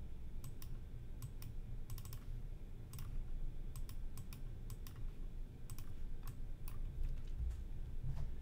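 Irregular, sharp clicks of a computer mouse, a dozen or so spread unevenly, over a steady low hum.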